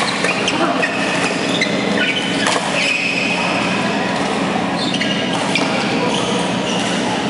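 Badminton rally: sharp cracks of rackets striking the shuttlecock, the clearest right at the start and about two and a half seconds in, with short high squeaks of court shoes on the mat, over steady hall noise.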